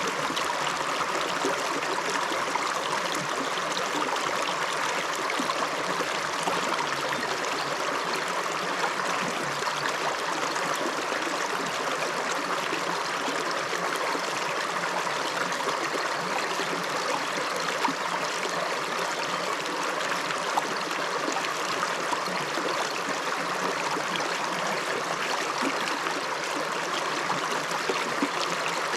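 River water running steadily with an even rushing sound that stays the same throughout.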